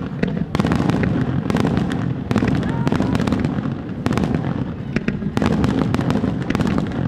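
Starmine fireworks barrage: shells bursting in quick clusters of sharp cracks about once a second, over a continuous low rumble of booms.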